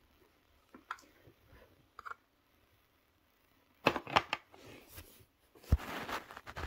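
Handling noises near a phone lying face-down: a few light clicks, then a quick run of sharp clicks about four seconds in, and a rustling scrape with a low thump near the end.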